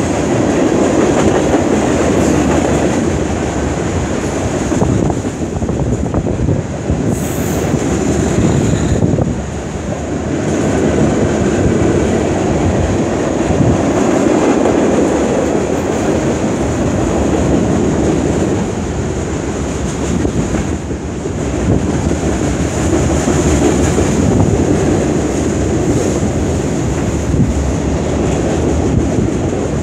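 Freight cars of a CN mixed freight train (tank cars, boxcars, covered hoppers) rolling by. Their wheels make a continuous rumble with clickety-clack over the rails, easing off briefly a couple of times as the cars pass.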